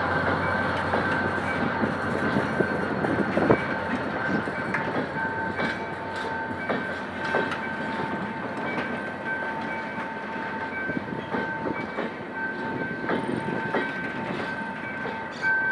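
Passenger train pulling out and rolling past, its wheels clicking over rail joints as the sound slowly fades. A steady high two-note tone pulses on and off behind it.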